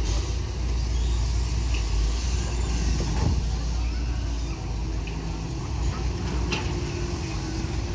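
Caterpillar 320D long-reach excavator's diesel engine running steadily while the long arm lowers its bucket into the canal, with a couple of short knocks partway through.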